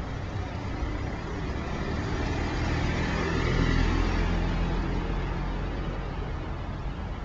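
A motor vehicle passing close by, its engine and tyre noise growing louder to a peak a little past the middle and then fading away.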